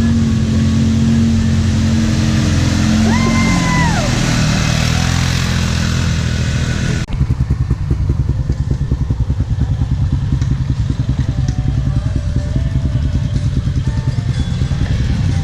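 Off-road vehicle engine running steadily, with a brief high tone about three seconds in. About seven seconds in the sound changes abruptly to a rapid, throbbing engine close to the microphone.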